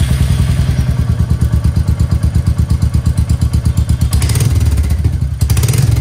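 Royal Enfield Meteor 350's single-cylinder engine running loud at idle, just started, through an exhaust with the catalytic converter removed: a rapid, even thumping beat. Two brief rattly bursts come about four and five and a half seconds in.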